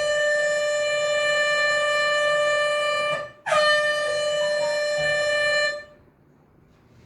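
Air horn sounding in two long, steady, single-pitched blasts, with a short break just after three seconds in; the second blast cuts off about six seconds in.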